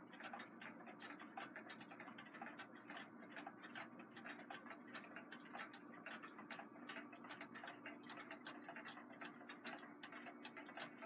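Faint ticking of mechanical clocks, several quick ticks a second falling unevenly, over a low steady hum.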